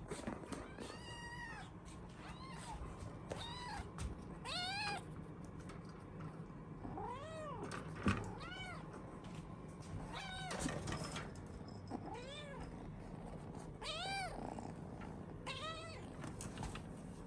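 Norwegian Forest Cat kitten meowing over and over, about ten high-pitched calls, each rising then falling in pitch. A single short knock is heard about eight seconds in.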